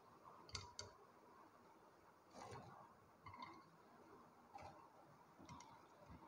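Near silence with a few faint, soft taps as pieces of fried bread are set down in a glass baking dish.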